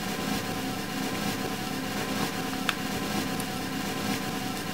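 Chef's knife sawing through a seared steak on a plastic cutting board: faint strokes about once a second, and one sharp metallic clink of knife on fork a little past halfway. Under it runs a steady machine hum.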